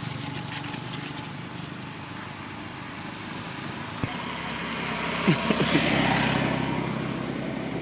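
A road vehicle passing by: engine and tyre noise grows louder to a peak about six seconds in, then fades. There is a single click about four seconds in and a few short, sharp sounds just before the peak.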